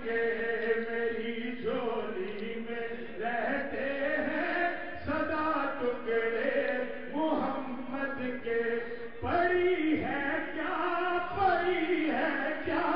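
A man's voice chanting an Urdu devotional recitation in long, drawn-out melodic phrases into a handheld microphone, amplified in the hall.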